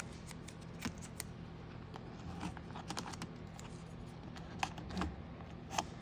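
Scattered light clicks and taps from fingers working tape and wiring into a car door's handle opening against its plastic handle bracket, over a faint steady low hum.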